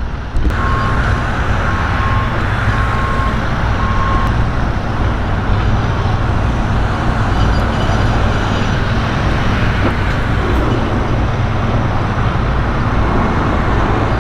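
Steady, loud rumble of vehicle and traffic noise that comes in suddenly at the start. Over it, a high beep repeats about four times in the first four seconds.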